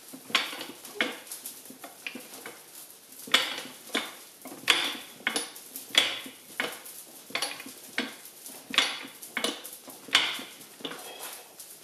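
Fly press repeatedly bringing its top swage down on a red-hot steel bar to set down a shoulder: a run of sharp metallic clanks, each with a short ring, about one and a half a second.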